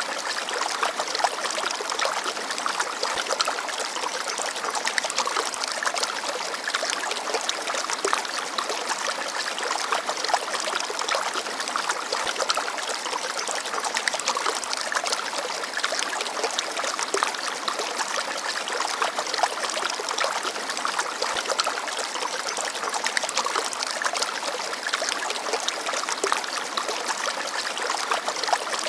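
Small forest stream babbling and trickling over rocks, a steady rush of water with many small splashes.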